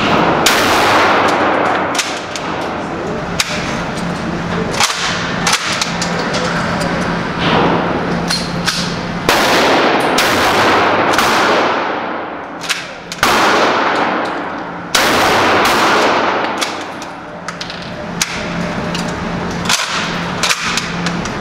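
UTS-15 12-gauge pump-action shotgun firing slugs: a string of loud shots a few seconds apart, each echoing off the walls of an indoor range, with smaller sharp cracks in between.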